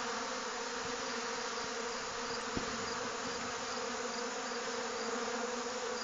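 Many honey bees buzzing in a steady, dense hum at a hive entrance during robbing, with robber bees and the hive's defenders tussling at the entrance.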